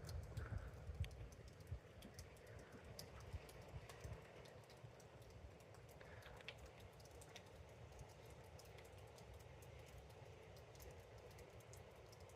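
Near silence, with faint irregular clicks and ticks scattered throughout.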